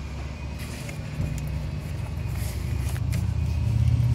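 Low, steady rumble of a motor vehicle's engine that grows louder from about a second in, with a few light clicks and rustles of hands working among hoses and wiring.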